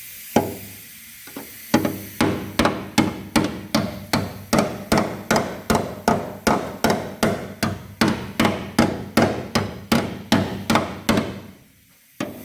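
Hammer beating on the rusted inner section of an Opel Manta chassis rail. Two single blows are followed by a steady run of about three blows a second for some nine seconds. The corroded steel is so weak that the hammer goes through it.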